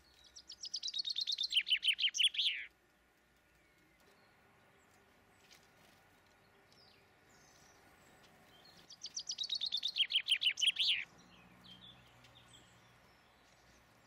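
A songbird singing twice: each phrase is a fast run of notes falling in pitch and lasting about two and a half seconds, the first right at the start and the second about nine seconds in. Faint short chirps come between and after the phrases.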